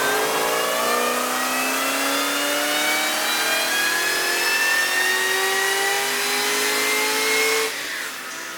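Supercharged Holden VE Commodore SS 6.0-litre V8 on a full-throttle run on 98 fuel, its pitch rising steadily in one long pull with a high supercharger whine climbing alongside. Near the end the throttle comes off and the sound drops away sharply.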